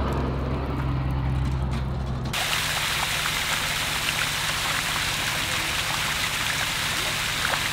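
A steady low mechanical hum for about two seconds, then it switches abruptly to water gushing out of a discharge pipe into a dip net full of shiners, a steady rush with splashing.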